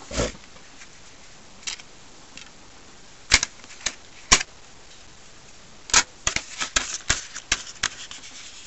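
Sharp plastic clicks of DVDs being unclipped from and pressed onto the centre hubs of a multi-disc DVD case. There are a few single clicks, then a quick run of clicks near the end.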